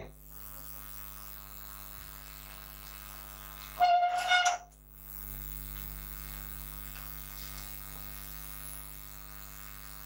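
Steady electrical mains hum with a buzzy run of overtones. About four seconds in, a short, loud sound with a clear pitch breaks in for under a second.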